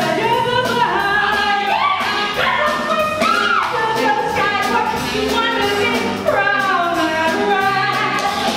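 A woman singing a swing jazz number with a live band behind her, over bass notes and a steady beat.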